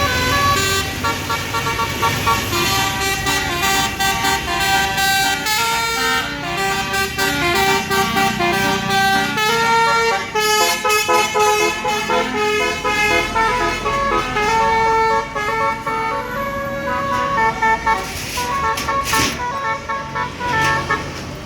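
Tour bus's basuri telolet horn playing a melody of many short, quickly changing notes, with the bus's engine running underneath.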